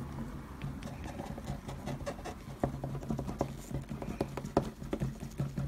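Paintbrush dabbing and scratching on paper while painting with alcohol ink: quick irregular taps, some sharper ones in the second half, over a low hum.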